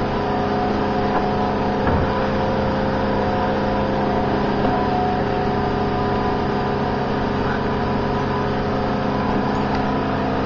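An engine running steadily at an unchanging speed, a constant droning hum.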